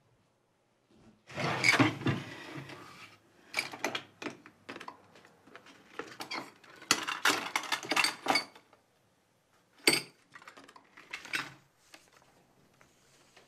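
Rummaging through a cluttered desk drawer: metal tins, a glass jar of marbles and other small objects clink and clatter against each other and the wood in several bursts, the loudest about a second and a half in.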